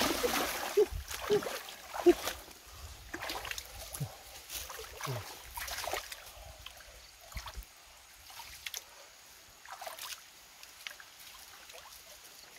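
Hands splashing and churning shallow stream water. Heavy splashing at first, then scattered smaller splashes and sloshing, quieter after about six seconds.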